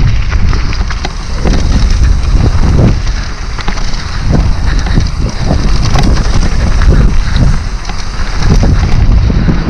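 Mountain bike riding down a dirt trail: wind buffeting the helmet or chest camera's microphone over the rumble of the tyres, with frequent short knocks and rattles from the bike over bumps.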